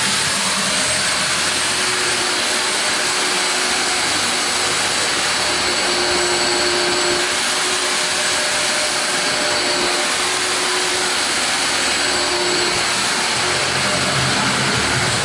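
Wet/dry shop vacuum running steadily, its hose sucking up dust and debris from a wood floor.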